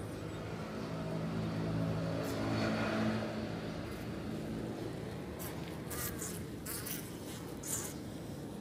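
Honeybee colony buzzing, a steady hum that swells over the first three seconds and then eases. A few short, sharp clicks come between about five and eight seconds in.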